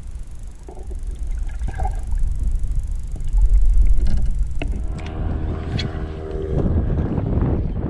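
Muffled low rumble and sloshing of water against a camera held under the lake surface, with a louder surge about halfway through. About five seconds in, a steady hum and scattered clicks and splashes join as the camera comes back out of the water.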